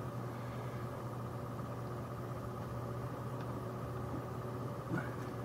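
Cooling fans of a Gigabyte Radeon HD 7870 OC graphics card running steadily under full GPU stress load. They give a steady hum with a thin whine.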